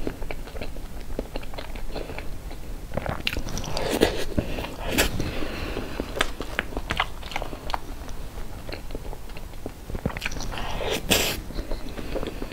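Close-miked wet chewing and lip smacking of a person eating soft cream cake: a steady run of small sticky clicks, louder about four seconds in and again near eleven seconds.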